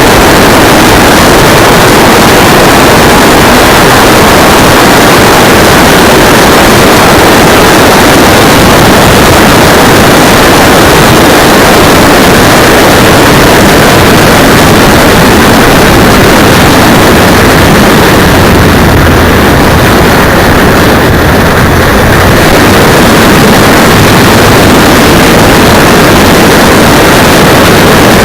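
Loud, distorted rush of wind and road noise on a cheap keychain camera's microphone mounted on a moving motorcycle, overloaded the whole time so that the engine is lost in the noise.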